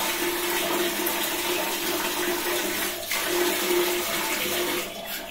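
Tap water pouring in a steady stream into a plastic bucket already holding water, through a two-housing household water filter just cleaned of iron clogging so the flow is restored. Near the end the flow cuts off as the tap is turned off.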